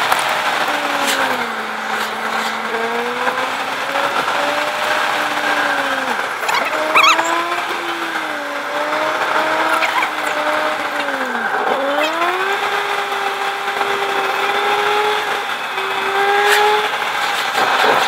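Car engine heard from inside the cabin over steady road and wind noise. Its pitch rises and falls with the revs, dropping sharply and climbing again about six and twelve seconds in.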